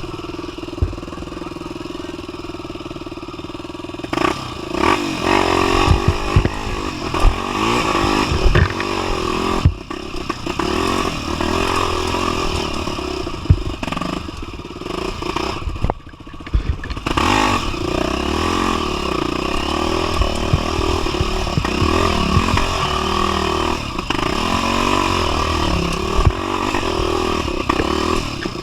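250 cc single-cylinder four-stroke trail motorcycle running steadily, then from about four seconds in revving up and down as it is ridden, with frequent knocks and clattering throughout.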